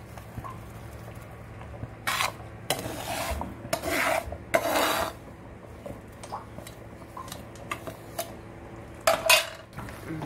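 Steel spoon scraping roasted semolina off a pan and stirring it into a steel pot of simmering coconut milk, with metal scraping and clinking against the cookware in several short bursts over a steady low hum.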